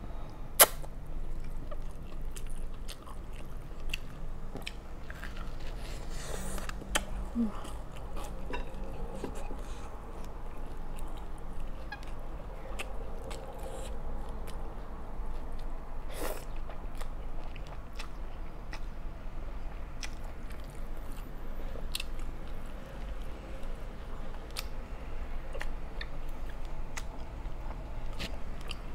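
A person slurping and chewing spicy instant noodles close to the microphone, with many small sharp mouth clicks throughout and one louder click about half a second in.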